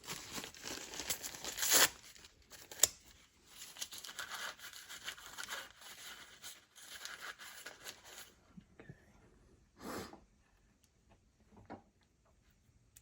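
Rustling, crinkling handling noise, like paper being crumpled, for the first eight seconds or so, with a sharp click about three seconds in. It is followed by a few soft, separate knocks near the end.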